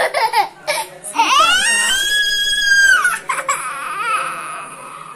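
A toddler's high-pitched crying: a short cry, then one long held wail about a second in, trailing off into shorter whimpering cries.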